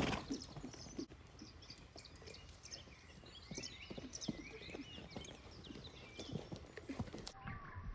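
Hoofbeats of a saddled horse trotting around on the lunge over soft, muddy ground: a scatter of dull, irregular thuds.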